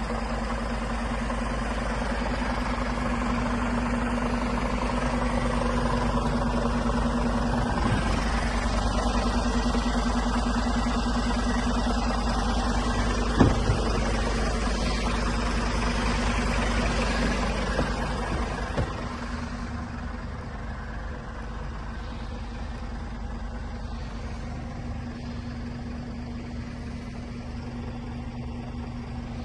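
A Scania S500 truck's diesel engine idling steadily. It gets quieter about two-thirds of the way through, with a single sharp knock near the middle.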